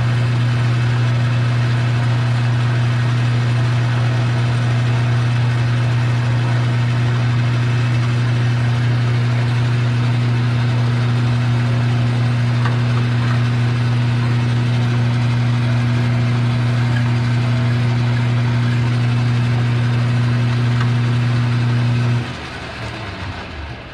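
Metal lathe's electric motor running steadily with a strong mains hum, switched off about 22 seconds in and winding down.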